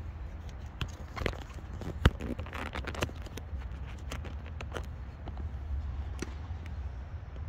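Tennis balls being struck and bouncing: a series of sharp knocks at uneven intervals, the loudest about two seconds in, over a low steady rumble.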